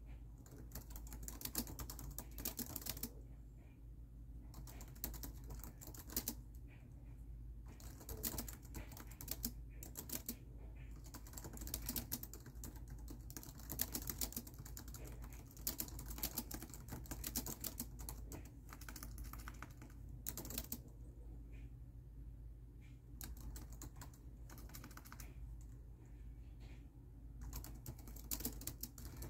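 Typing on a laptop keyboard: runs of quick key clicks lasting a few seconds each, broken by short pauses, over a low steady hum.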